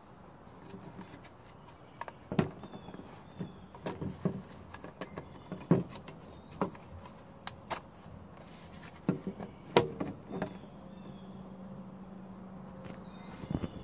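Irregular clicks and knocks from a mosquito trap being handled and opened to get at its catch cage. A steady low hum comes in about ten seconds in.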